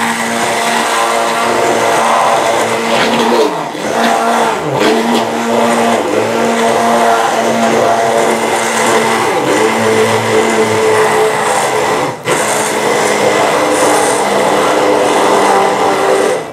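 Hand-held immersion blender running in a glass jug, whipping water and cucumber extract with xanthan gum into a gel. Its steady motor whine sags and recovers in pitch a few seconds in, and cuts out for an instant about twelve seconds in.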